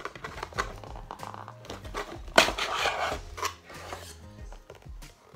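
Cardboard and plastic packaging of a GoPro camera box being pulled apart, with irregular rustles and scrapes and a sharp loud scrape about two and a half seconds in. Background music plays underneath.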